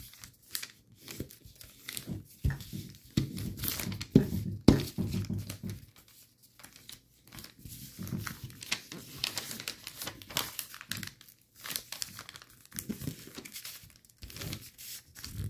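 A square sheet of light 15-pound paper being folded and creased by hand: irregular crinkling and rustling with sharp crackles as the flaps are pressed flat, pausing briefly now and then.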